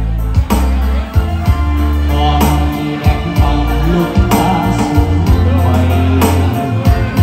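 Live song accompaniment played on a Korg electronic keyboard: held bass notes, a melody and a programmed drum beat.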